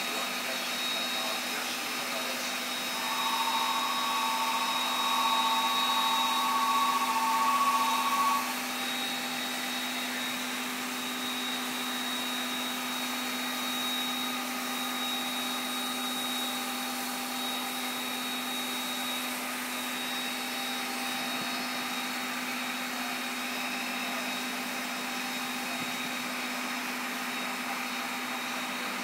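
Steam locomotive C57 180 standing at a platform, venting steam with a steady hiss over a constant low hum. From about three to eight seconds in, a steady two-note tone sounds over the hiss.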